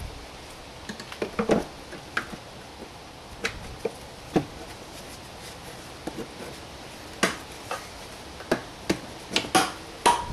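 Irregular sharp plastic clicks and taps from handling a Peugeot 307 SW's rear light cluster and its bulb holder. They come sparsely at first, then thicker and louder from about seven seconds in.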